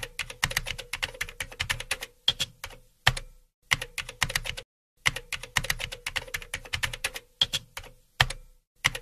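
Computer keyboard typing: quick runs of key clicks broken by short pauses, each run closed by a single heavier key strike. The same pattern of runs plays twice.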